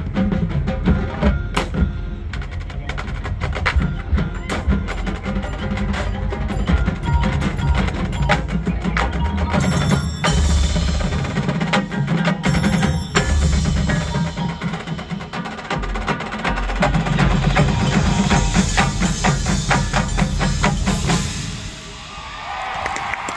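Marching band playing the close of its field show: sharp drum and mallet-percussion hits over sustained low brass. The music stops about 21 seconds in, and crowd applause begins near the end.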